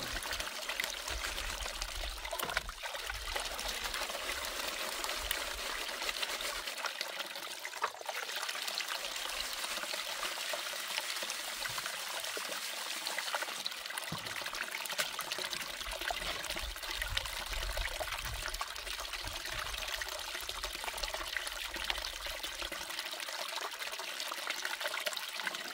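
Water running steadily down a small plastic sluice box as a steady trickling pour.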